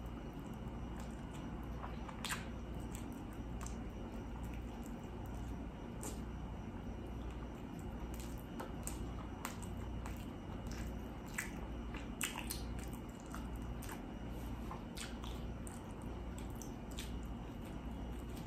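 Close-miked chewing of food, with irregular wet mouth clicks and smacks, over a low steady hum.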